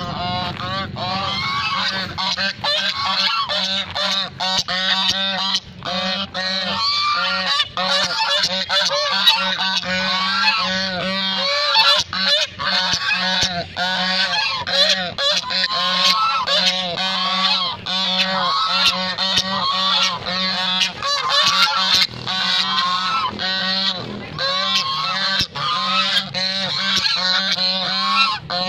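Domestic white geese honking without a break, many short calls overlapping, over a steady low hum.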